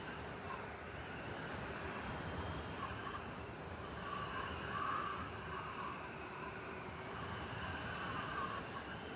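Steady wind noise of a blizzard blowing through a city, with a faint whistling tone that comes and goes and a low rumble of distant traffic underneath.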